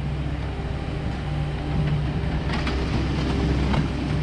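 Kubota skid steer's diesel engine running steadily as its bucket scrapes manure along a barn alley floor, with a few sharp clanks from the bucket and loader.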